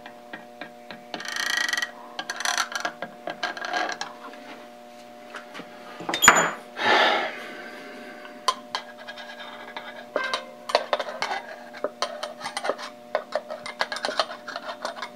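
Steel parts of a dividing-head tailstock handled on a workbench: scattered metal clicks and taps, a sharp knock about six seconds in, and a few short rubbing noises, over a faint steady hum.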